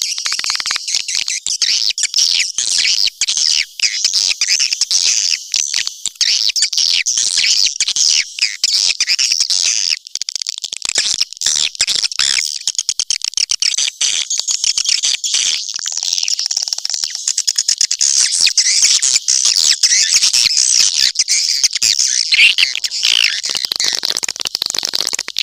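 Swiftlet caller track: a dense, unbroken mass of high-pitched swiftlet twittering and chirping with rapid clicks. It is the kind of lure call played through tweeters to draw swiftlets into a nesting house.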